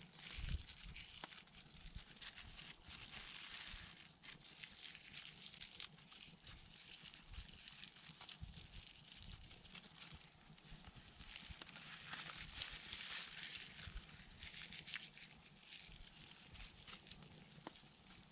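Faint rustling and crinkling of a plastic bag being kneaded and shaken, mixing wood ash into water and crushed birch leaves to make soap, with small clicks and soft knocks, the rustling swelling twice.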